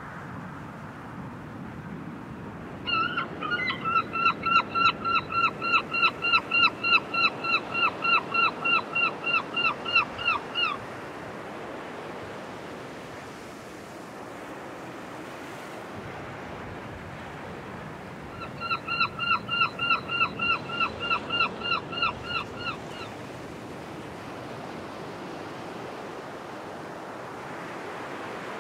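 Surf washing on a beach, with two long runs of clear, rapidly repeated calls from an animal, about three calls a second. Each call drops at its end. The first run lasts about eight seconds and the second, beginning near the middle, about four and a half.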